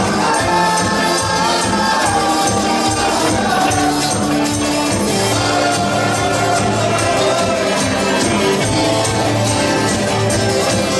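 A live rock band plays a 1970s pop medley: acoustic and electric guitars, bass, drums and keyboards, with several voices singing together over a steady beat.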